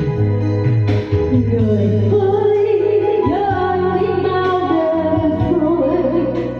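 Music from a slow Vietnamese ballad: a sustained bass and accompaniment under a gliding melody line.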